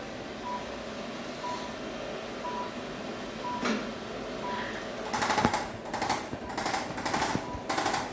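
Faint short beeps about once a second, then from about five seconds in a rapid mechanical hammering buzz in short repeated bursts, about one or two a second, like a percussion device pressed on and off.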